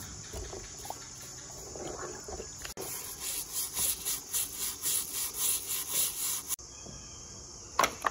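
Brush scrubbing a chainsaw's plastic recoil starter cover in a tub of water, with water sloshing and a run of even, hissy scrubbing strokes about three a second. A single sharp knock near the end.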